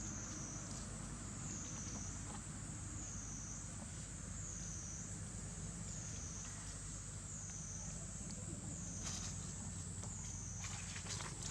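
A steady high insect buzz that wavers up and down in pitch about every second, with a few short clicks or rustles near the end.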